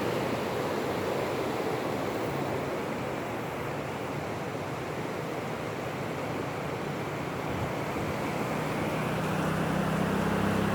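Steady rush of water. A low engine hum comes in about eight seconds in and grows louder toward the end.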